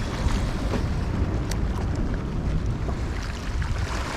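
Steady wind noise on the microphone, a low buffeting, with the wash of surf behind it.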